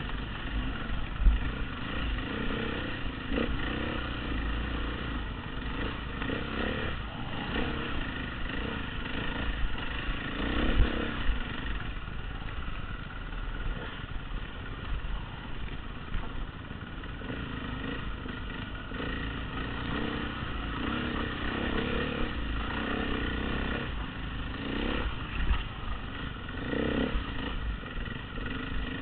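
Dirt bike engine running as the bike rides a rough woodland trail, the engine note rising and falling with the throttle. There are a couple of sharp knocks, about a second in and again around the middle, as the bike goes over rough ground.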